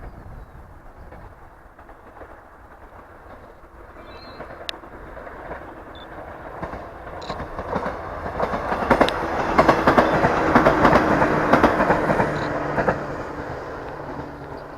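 A JR West Ako Line train passing over the level crossing: it swells as it approaches, is loudest about two-thirds of the way through with a rapid clatter of wheels over the rail joints, then fades as it moves away.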